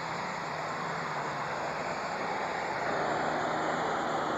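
Modified pulling tractor's engine running hard under load, pulling a weight sled. A dense, steady noise that grows a little louder about three seconds in.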